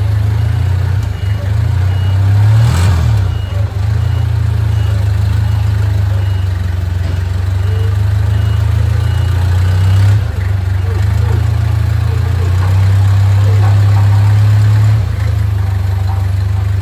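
A vehicle engine idling steadily. A reversing alarm beeps repeatedly over it until about ten seconds in.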